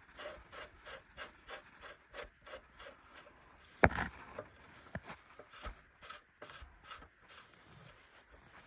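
Faint rubbing and scraping as a nut is turned by hand onto a bolt on a tractor attachment frame, in short strokes a few times a second, with a sharp metallic click about four seconds in.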